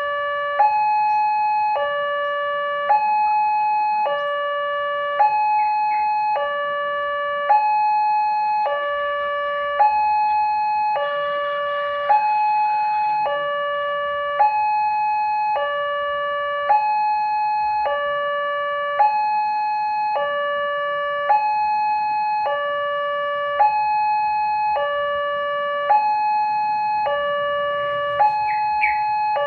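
Railway level-crossing warning siren sounding a two-tone hi-lo alarm, switching between a lower and a higher tone about once a second.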